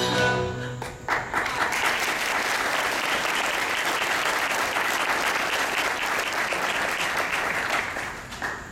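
Theatre audience applauding at the end of a musical number; the last notes of the backing music fade out in the first second, and the clapping tapers off near the end.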